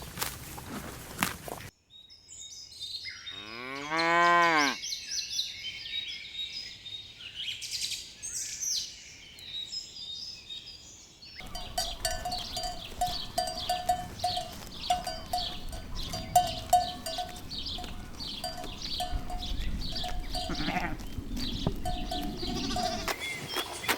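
Cow mooing once, a call of about a second and a half that slides in pitch, over birds chirping. About ten seconds in, it gives way to a string of short repeated ringing tones with scattered clicks, like a cowbell.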